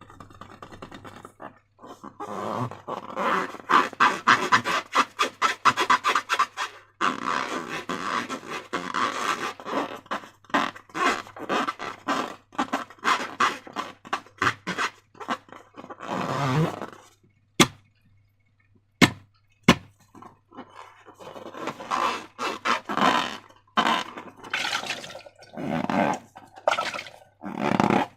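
Slime being squeezed and stretched by hand, a fast run of wet crackles and clicks that stops for a few seconds, leaving a few single sharp pops, before the crackling starts again near the end.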